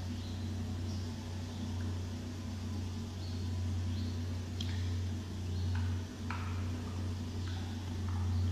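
Steady low drone of a grass-cutting machine running outside, dipping briefly partway through, with short high chirps that sweep downward every second or so.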